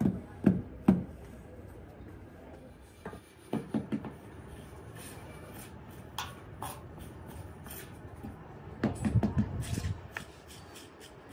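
Repeated thuds: a few at about two a second right at the start, a pair around four seconds in, and a quick flurry around nine seconds, with quieter scraping and handling noise between.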